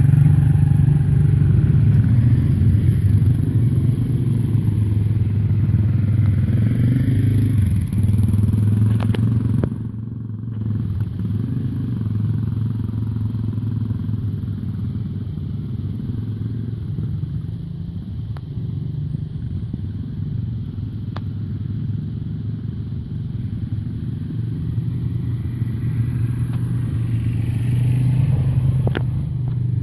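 Small youth dirt bike engines running steadily at low speed as children ride them. The engine sound is louder at first and drops back about ten seconds in.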